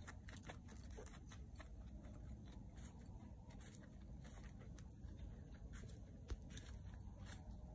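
Faint crackling and rustling of a ground tarp under footsteps and hooves, with two sharper knocks near the end over a low steady rumble.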